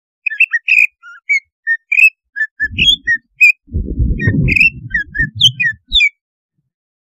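Green leafbird (cucak ijo) singing a rapid run of short, varied whistled chirps and squeaky notes, a fired-up song used to provoke other leafbirds into singing. A low rumble lies under the song through its middle, and the song stops about six seconds in.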